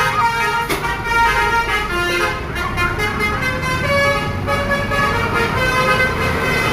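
Basuri musical horns on two buses playing a tune of held notes that step from pitch to pitch, over the low rumble of the bus engines.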